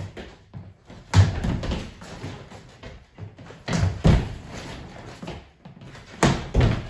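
Two people's feet landing hard on a hardwood floor during fencing jump-lunges: three heavy thuds about two and a half seconds apart, the later two each a quick double thud, with lighter steps scuffing between them.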